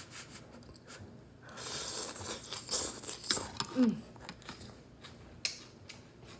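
Close-miked chewing of a mouthful of udon noodles, with wet mouth clicks and smacks coming and going.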